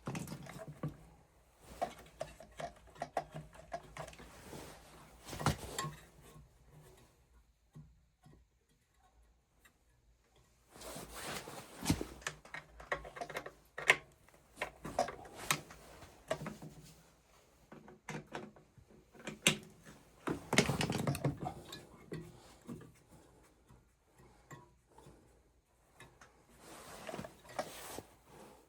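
Scattered clicks, taps and metal clatter of hand tools and parts while an oil burner's motor and fittings are being screwed back together, with a few short bursts of scraping and rattling.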